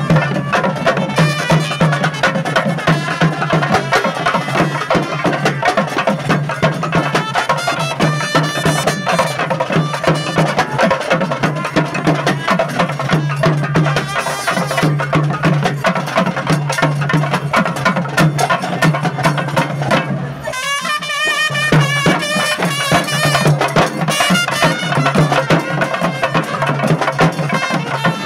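Tamil-style street procession band playing loudly: shoulder-slung barrel drums of the thavil type beaten in fast, dense strokes under a sustained wind-instrument melody, with a steady low drone beneath. The low drone and much of the drumming drop away briefly about twenty seconds in, then return.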